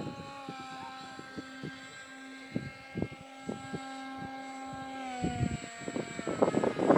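Electric motor and propeller of a foam RC MiG-29 model (2450kv brushless motor, 5-inch prop) whining at a steady pitch, then winding down about five seconds in as the throttle comes off after landing. Scattered soft knocks run through it.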